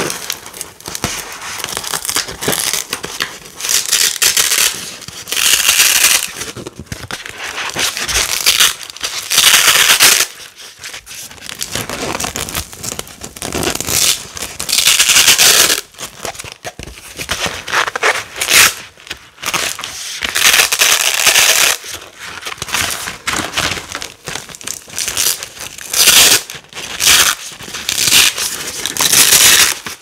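Large black hook-and-loop (Velcro) panels being pulled apart again and again, each peel a loud crackling rip lasting up to a couple of seconds, with quieter rustling as the pieces are pressed back together in between.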